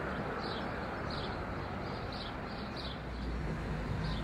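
Steady outdoor noise with a low rumble that grows slightly stronger in the second half. Over it a bird chirps repeatedly, a short high note every half second or so.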